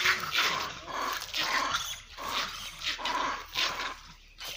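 Monkeys calling in a string of short, harsh cries, two or three a second, with a brief lull near the end: the calls of two males fighting over a female.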